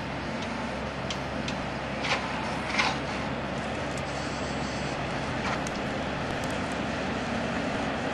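Di 6 diesel locomotive's engine running with a steady low hum, with two sharp knocks about two and three seconds in.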